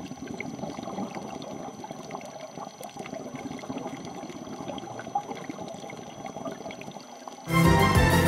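Underwater ambient noise as picked up by a diving camera: a steady watery hiss with scattered faint clicks and a thin, steady high tone. Music starts abruptly and loudly about seven and a half seconds in.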